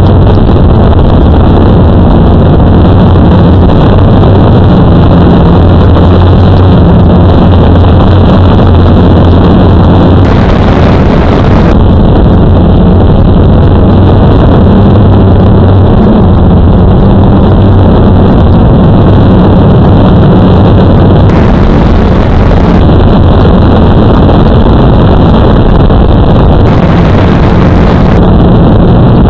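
Blade QX3 quadcopter's motors and propellers running in flight, picked up loud and close by the onboard camera's microphone: a steady low buzz whose pitch shifts slightly as the motors speed up and slow down, under a rush of noise. Three times the noise briefly turns brighter and hissier.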